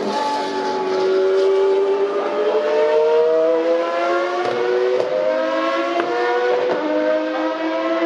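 Open-wheel single-seater race car accelerating hard out of a hairpin: the engine note climbs, drops back at each upshift about every two seconds and climbs again. A few short sharp cracks come near the middle.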